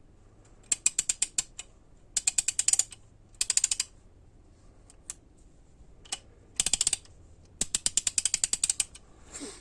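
TEKTON 1/2-inch drive torque wrench giving rapid ratcheting clicks in about five short runs, each lasting under a second to about a second and a half, with short pauses between.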